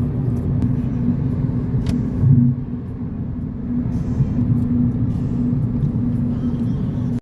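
Car cabin noise while driving: a steady low road rumble with engine hum, and a brief louder bump about two seconds in.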